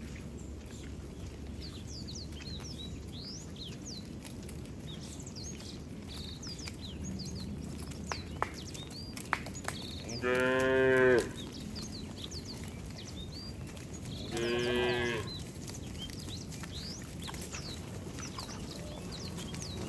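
Cattle mooing twice in the second half, each low call lasting about a second, over a steady background with faint high chirps.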